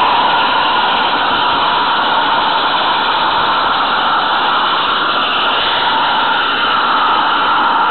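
Steady noisy rumble and hiss of a 16 mm scale garden railway train running along the track, heard from a small camera riding on the train.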